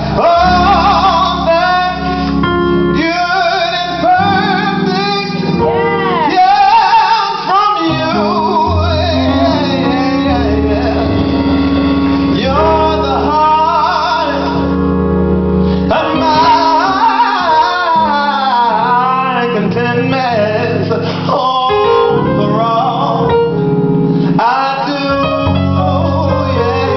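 Live gospel singing: a male singer's ornamented vocal runs, bending up and down in pitch, over a band with electric guitar.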